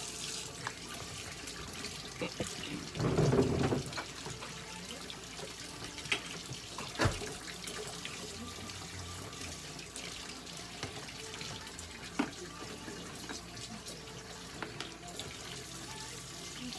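Tap water running steadily into a sink, with a few sharp clicks and a short louder noise about three seconds in.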